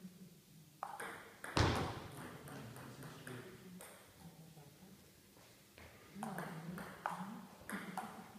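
Table tennis ball clicking off bats and table in short bursts of play, a few sharp clicks about a second in, then a quiet spell, then a run of clicks in the last couple of seconds, each echoing in the hall.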